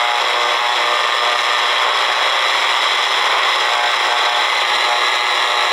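Shortwave static from a Redsun RP300 receiver's speaker as it is tuned between stations at the top of the 49 meter band: a steady hiss with faint whining tones through it. The band is noisy, which the owner puts down to breakthrough from the city's FM stations.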